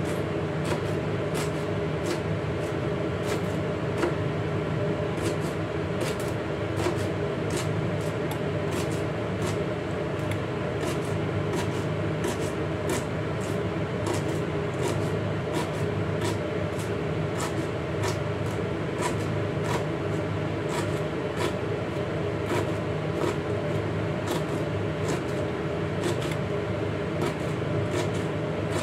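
Chef's knife chopping celery on a plastic cutting board: irregular sharp taps of the blade hitting the board, roughly two a second, over a steady background hum.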